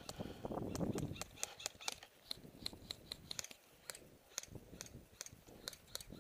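Airsoft guns firing in scattered single shots, heard as sharp, irregular clicks several times a second, with a burst of rustling movement in the first second.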